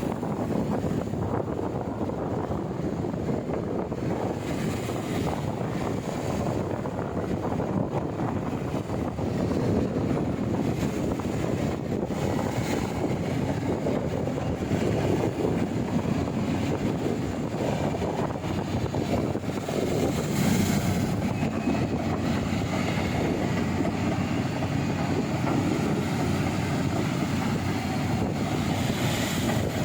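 Kobelco excavator's diesel engine running steadily, with wind buffeting the microphone.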